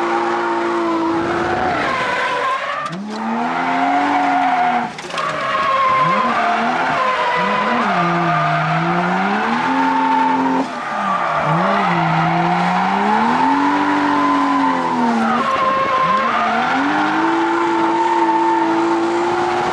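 Toyota JZX drift car's engine heard from inside the cabin, revs climbing and falling again and again through the corners, with tyres squealing as the car slides. The revs drop sharply about three seconds in, again near five seconds and just after ten.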